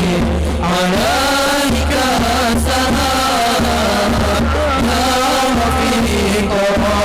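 Hadroh ensemble playing: frame drums (rebana) and a bass drum keep a steady beat under a sung Arabic devotional song (sholawat), amplified through a PA system.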